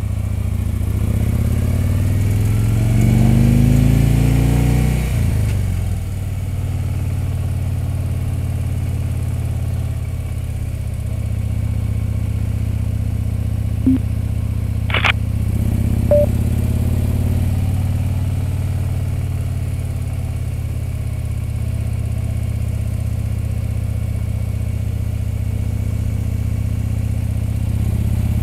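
Touring motorcycle engine running under way. Its revs rise over the first few seconds, fall back about five seconds in, and then hold steady at cruising speed. A short click and a brief high chirp come about halfway through.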